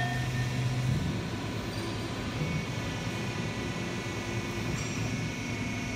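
Steel plate flip machine running during a working test: a steady mechanical hum and rumble, whose strongest low hum drops away about a second in while a lighter steady drone continues.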